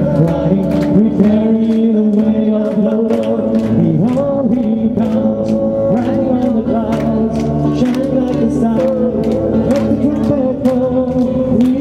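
A man singing into a microphone over amplified music, with people clapping along on a steady beat about twice a second.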